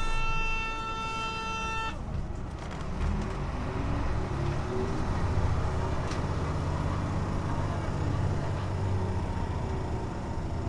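A steady electronic buzzer tone cuts off about two seconds in. Then the Hino Blue Ribbon bus's diesel engine revs up, rising in pitch, and settles into a steady drone.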